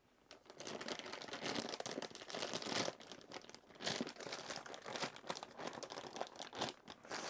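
Plastic wrapping on an air purifier's HEPA filter crinkling and crackling as it is handled, an irregular run of rustles and small crackles.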